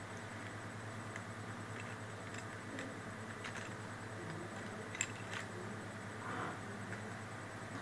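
Steady low hum with scattered light clicks, the sharpest one about five seconds in.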